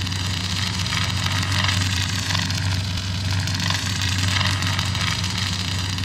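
Kylo Ren's crossguard lightsaber sound effect idling: a steady low hum under a crackling hiss, the crackle swelling slightly twice.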